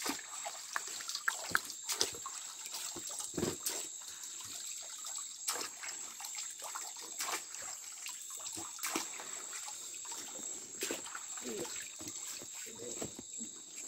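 Shallow stream water splashing and trickling in irregular bursts as hands rub and wring a bundle of crushed fish-poison root in it, working the milky poison out into the pool.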